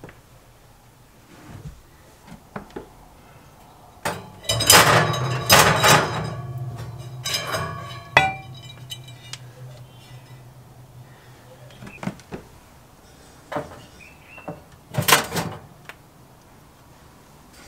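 Cast iron Dutch oven and its heavy lid clanking and scraping against each other and the oven's wire rack as they are handled. A loud cluster of metallic clanks comes about four to six seconds in, a sharp clink that rings briefly near eight seconds, and another burst of clanks near fifteen seconds.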